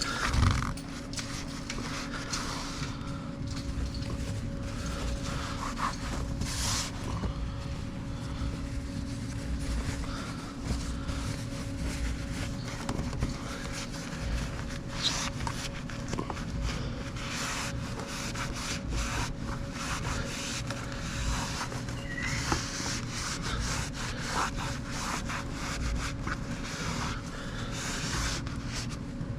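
Irregular rubbing and scraping with scattered small clicks, like things being handled or cloth brushing against the microphone, over a steady low hum.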